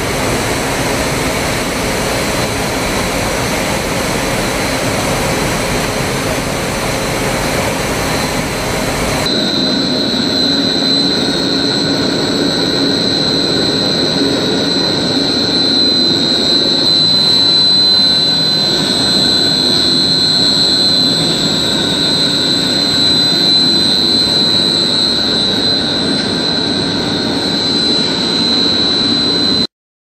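Cable-making machinery running steadily. For about nine seconds there is a dense, even machine noise. A sudden change then brings a different machine run with a steady high-pitched whine over a lower hum.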